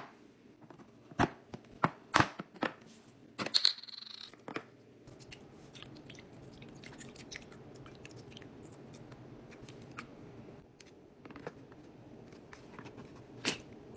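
Hard plastic ice-ball mould tray handled with a series of sharp clicks and knocks. Then liquid pours steadily into its cups for several seconds. Near the end, a louder click as the domed lid is pressed on.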